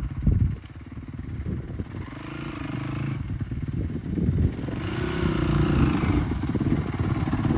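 Yamaha YZ-F dirt bike's four-stroke single-cylinder engine revving up and easing off as the bike is ridden, its pitch rising about two seconds in and again about five seconds in, getting louder toward the end. A couple of knocks at the start.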